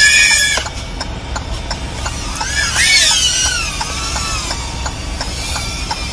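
3-inch FPV quadcopter flying close by, its motors and propellers whining with a pitch that rises and falls as the throttle changes. The whine is loudest at the start and again about three seconds in. A faint regular ticking, about four a second, runs underneath.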